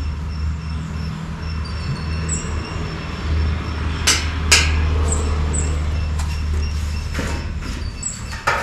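Two sharp metallic clicks about half a second apart, steel forceps knocking on a stainless-steel table, over a steady low hum; a few softer knocks and scrapes on the table near the end.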